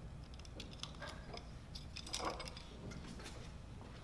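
Faint, scattered light metal clicks and clinks as parts are handled and fitted onto the screen-printing press's centre hub, with a soft scrape about two seconds in.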